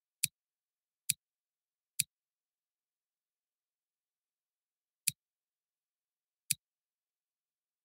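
Computer mouse button clicking, five single sharp clicks: three about a second apart, then two more about three and four and a half seconds later.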